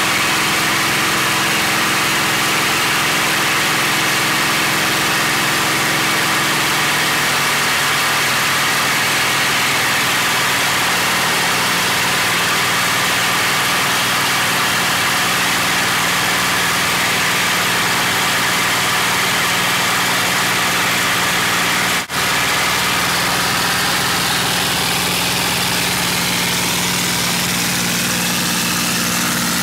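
P-51D Mustang's Packard Merlin V-12 engine and propeller in flight, heard from inside the cockpit as a loud, steady drone under heavy wind hiss. The engine note changes about seven seconds in and again near the end, and the sound drops out for an instant a little after twenty seconds.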